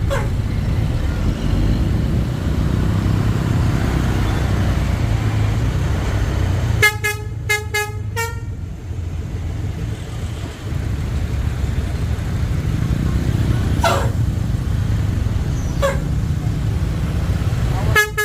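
Basuri 'telolet' bus horn playing a quick run of short musical notes about seven seconds in and again at the end, over a steady rumble of engine and road noise.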